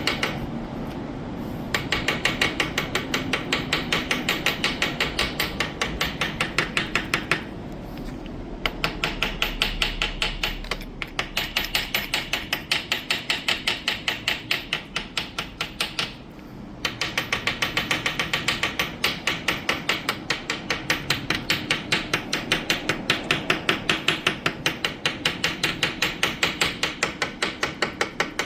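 Pulsed TIG (argon) welding arc on aluminium: a fast, even ticking at about three or four pulses a second, breaking off briefly twice as the arc stops. The weld repairs a broken, holed Honda PCX crankcase.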